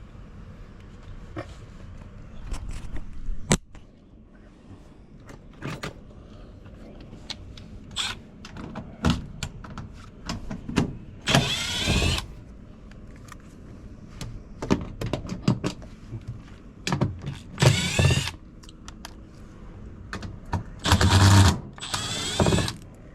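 Scattered clicks and knocks of hands-on work with tools and equipment, broken by three short whirring bursts of a small motor; the longest, about two seconds, comes near the end.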